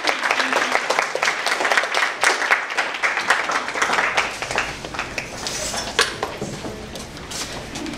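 A small audience applauding, dense clapping that thins out and fades away about halfway through.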